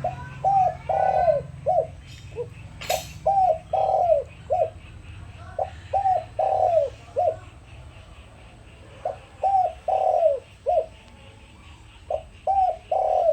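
Caged decoy spotted dove cooing, a repeated phrase of several short and drawn-out coos about every three seconds, five times. A sharp click about three seconds in, with faint chirping of small birds behind.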